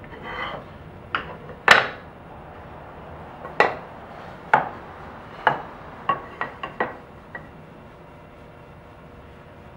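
Wooden frame strips set down and knocked against a wooden worktable as they are laid out into a rectangle: a light scrape at the start, then about ten sharp wooden knocks, the loudest about two seconds in and a quick run of them around six to seven seconds.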